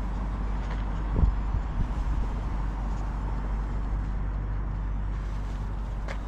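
Wind buffeting the microphone, a continuous low rumble, with a short knock about a second in.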